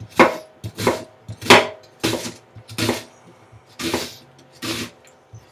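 Chef's knife slicing through an onion onto a cutting board: about seven separate cuts, each a short crunch ending in a knock on the board, roughly one every two-thirds of a second with a brief pause midway.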